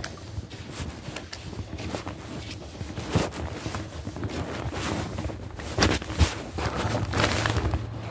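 Irregular footsteps and rustling handling noise as a person walks through a drain tunnel holding a phone, over a low steady hum.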